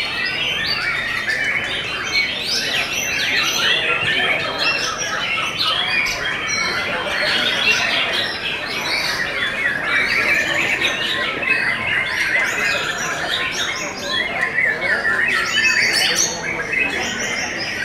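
Many caged white-rumped shamas (murai batu) singing at once in a contest round: a dense, unbroken chorus of overlapping short whistled and sweeping notes.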